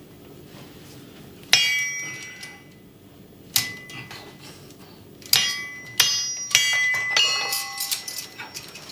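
A series of about six sharp metallic clangs at irregular intervals, each ringing on briefly with a clear high tone before fading, like metal struck on metal.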